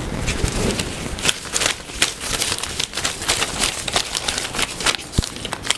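Torn paper slips rustling and crinkling in quick, irregular crackles as a hand rummages among them inside a wrestling mask to draw one out.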